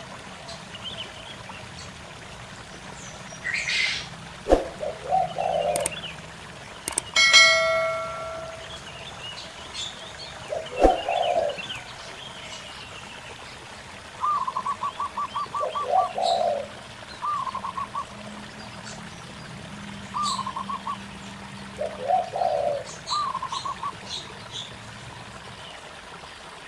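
Zebra doves and spotted doves calling back and forth: low coos repeated every few seconds, and from about halfway through, fast runs of short higher cooing notes, with a few small birds chirping. A steady trickling stream runs underneath.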